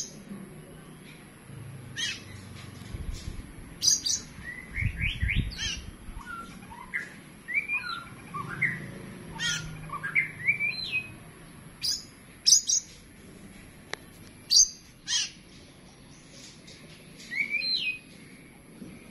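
Oriental magpie-robin, fresh from a bath, giving its rival-challenging song: sharp, loud call notes mixed with quick rising whistled phrases, repeated throughout.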